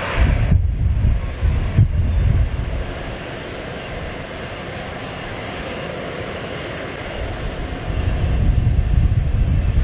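Airbus A320's CFM56 jet engines running at low taxi thrust as the airliner taxis after landing: a steady jet hiss, with bursts of loud low rumble in the first couple of seconds and again near the end.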